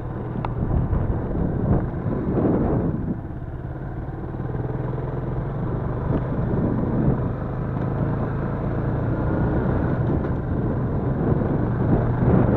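Yamaha Crypton-X's small single-cylinder four-stroke engine running steadily under way off-road, a constant low engine note under a rough rushing noise that grows louder near the end.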